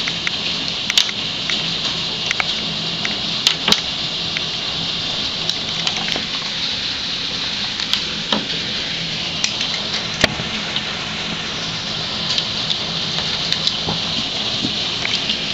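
Hailstorm: hailstones pelting a paved yard and garden, a steady hiss with scattered sharp clicks of single stones striking.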